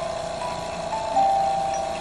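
Wilesco organ playing from a punched music strip: a run of notes stepping down in pitch over one held note, with a louder note about a second in. The drive mechanism clatters underneath.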